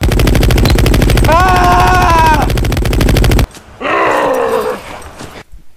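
Machine-gun fire sound effect: a rapid, even run of shots with a yell over it about a second and a half in. It cuts off sharply about three and a half seconds in, and a short cry follows and trails off.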